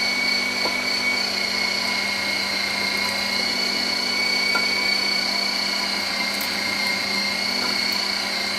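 Bosch electric meat grinder running with a steady motor whine while pork is pressed down the feed tube with the plunger and minced through the plate.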